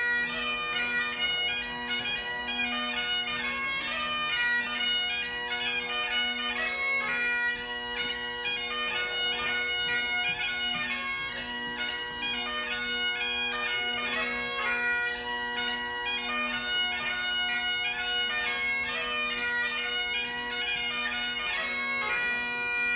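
Great Highland bagpipe playing a tune: steady drones sounding under a melody on the chanter.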